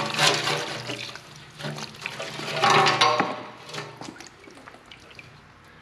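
Flushing gasoline full of rust sediment gurgling and splashing out of an old snowmobile's metal fuel tank into a drain pan, pouring in uneven surges that ease off near the end. The rusty sludge in the fuel is the sign of a badly corroded tank.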